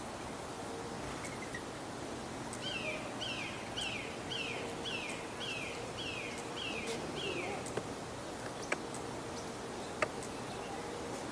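A bird calling a run of about nine short, falling whistled notes, roughly two a second, over a steady outdoor background hiss. A couple of sharp clicks near the end.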